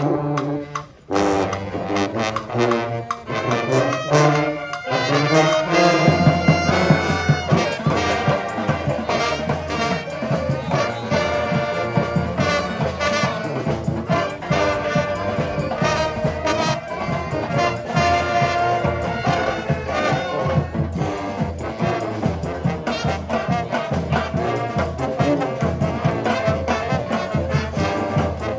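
A street brass band playing a tune with trombones and trumpets. After opening brass phrases with a brief break about a second in, the drums and full band come in about six seconds in and carry a steady beat.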